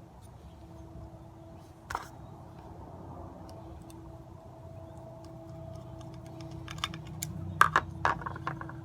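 Small screws and metal parts clicking and tapping as they are handled and fitted during assembly. There is a single click about two seconds in and a quick run of clicks near the end, over a faint steady hum.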